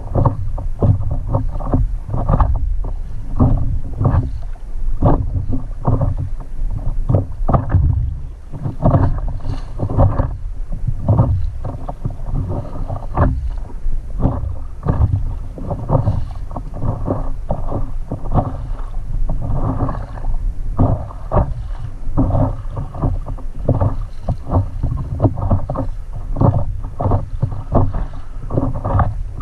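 Water lapping and slapping against a stand-up paddleboard in light chop, as a dense, irregular run of short, dull splashes, several a second.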